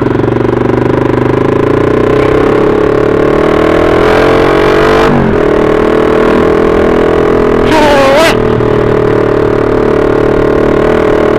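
Motorcycle engine running while under way, rising in pitch as it accelerates about halfway through, then dropping suddenly at a gear change. A brief wavering higher tone sounds about two-thirds of the way through.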